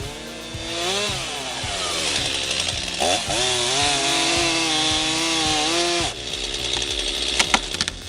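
Chainsaw engine running, its pitch rising and falling and then held high and steady, until it cuts off suddenly about six seconds in. After that, crackling with a few sharp cracks near the end.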